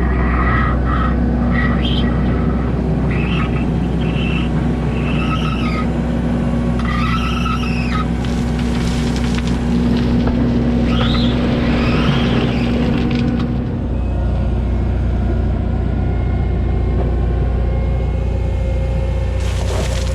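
Diesel heavy equipment running steadily under load, with a series of high, wavering metallic squeals over roughly the first twelve seconds. About fourteen seconds in, the engine note drops and changes.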